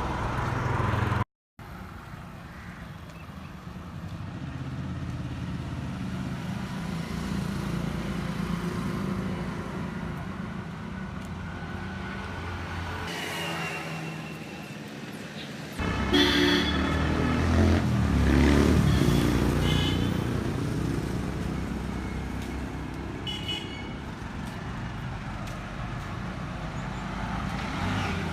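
Road traffic passing, with vehicle horns honking briefly a few times; the traffic gets louder a little past halfway, as engines pass close by.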